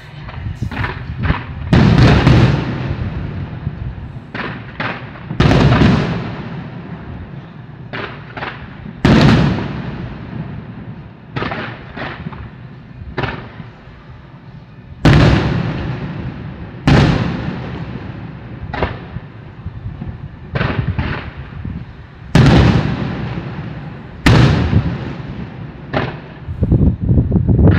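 Aerial fireworks shells bursting one after another. Big booms come every few seconds with smaller reports in between, and each trails off in a rolling echo.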